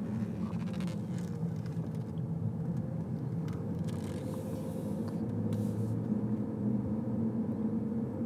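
A steady low motor rumble with a constant hum, like an engine running at idle.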